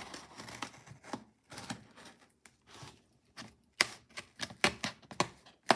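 A cardboard shipping box being handled and opened: a series of sharp clicks and taps. They come sparse at first with a short lull, then faster and louder from just before four seconds in.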